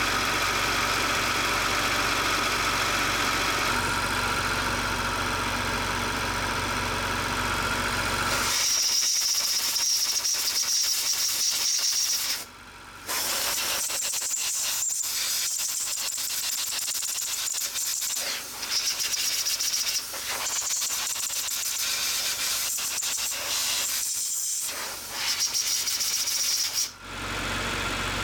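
Car engine idling steadily; about eight seconds in it gives way to a long, high hiss of refrigerant gas escaping at the air-conditioning service valve, with small handling clicks and a few brief breaks.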